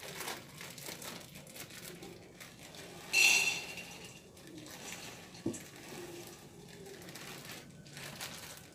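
Clear plastic bag crinkling and rustling as it is handled. There is a brief louder rustle about three seconds in and a single light knock a couple of seconds later.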